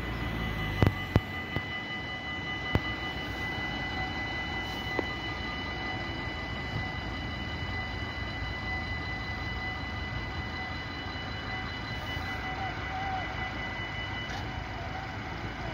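Dutch automatic level-crossing warning bells ringing steadily as the half-barriers lower, with a few sharp knocks about a second in.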